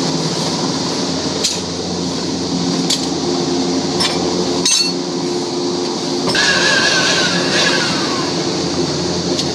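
Concrete core drill running loudly and steadily as it bores through a concrete slab, with four sharp clinks in the first five seconds. About six seconds in, a higher wavering whine rises over the hum and then slides down.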